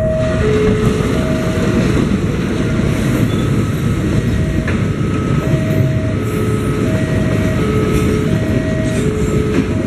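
A loaded Pertamina fuel tank train rolling past a level crossing behind a GE diesel-electric locomotive: a steady low rumble with wheel clatter over the rails and one brief clank near the middle. Over it, the level-crossing warning alarm sounds a two-note chime, alternating high and low notes under a second apart.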